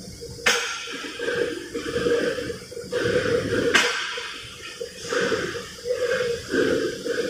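Metal hole-making machine running with a steady hum. A sudden rush of hissing noise breaks in and fades away three times.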